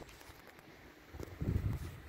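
Wind buffeting the microphone: an irregular low rumble that is quiet at first and swells in gusts about one and a half seconds in.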